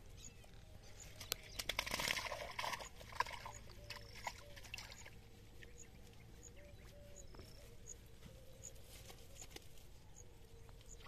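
Nylon cast net rustling and clicking as hands pull it apart and pick fish from the mesh, loudest about two seconds in. Faint small animal calls repeat at a steady pace behind it.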